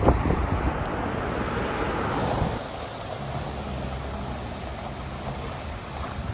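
Rain falling at night. For the first two and a half seconds a louder rush of vehicle and wet-road noise sits over it, then it drops to a softer, steady rain with faint low tones underneath.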